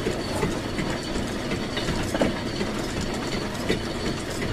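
Steady mechanical clatter from machinery running in a machine shop, with many small irregular clicks and a few sharper knocks.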